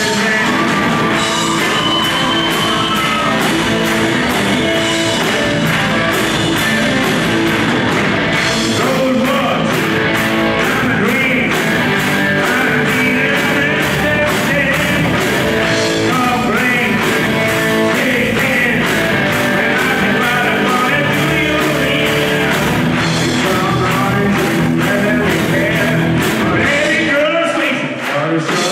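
Live rock band playing: drum kit, electric guitars and bass guitar, with a male voice singing over them.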